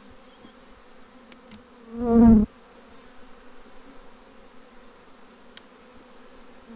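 Honeybees buzzing steadily around an opened hive. About two seconds in, a bee passes close by and its buzz is briefly loud for about half a second, and a few faint clicks come through.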